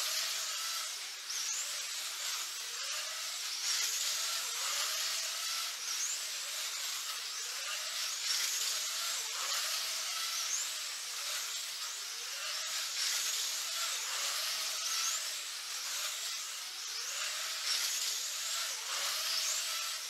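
1/24-scale GTP slot cars racing: their small electric motors whine and rise in pitch as the cars accelerate, over and over about every two seconds, over a steady hiss.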